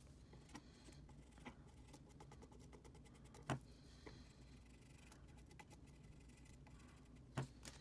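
Faint scratchy rubbing of a pencil eraser scrubbing the tops of graphics-card memory chips, roughing them up so thermal adhesive will stick. A few light clicks are heard, the sharpest about three and a half seconds in and again near the end.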